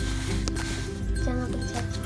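Background music with steady held notes that change in steps.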